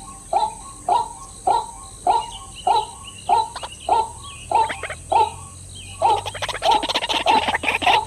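White-breasted waterhen calling: a steady series of repeated notes, nearly two a second, which grows faster and denser about six seconds in.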